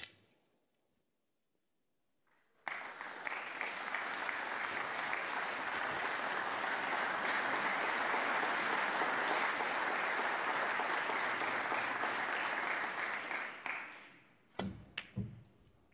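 Audience applauding for about eleven seconds, starting suddenly and then fading away. Near the end come a few sharp clicks of a snooker shot, cue tip and balls striking.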